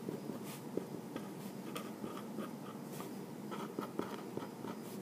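Sharpie permanent marker writing on paper, a steady scratching broken into many short, irregular strokes as words are written.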